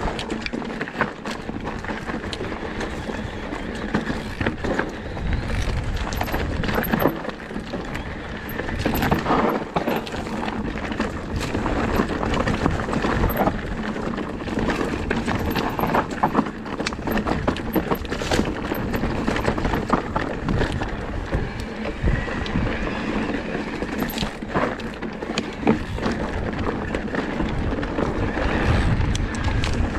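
Electric enduro mountain bike ridden fast down a rocky singletrack: tyres on loose stones and the bike's frame and chain rattling in a dense, irregular run of small knocks, over a steady rushing noise.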